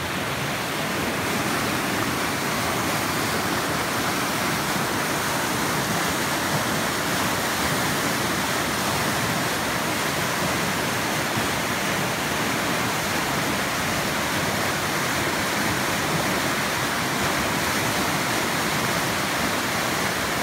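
A river in flood: brown floodwater rushing over rocky ledges and rapids as a steady, unbroken rush of water, a little louder after the first second or so.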